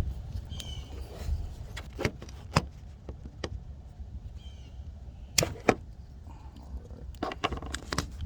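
Sharp clicks and knocks, one or two at a time with a cluster near the end, as a turn signal bulb is worked out of its socket in a car's headlight lamp assembly, over a steady low rumble.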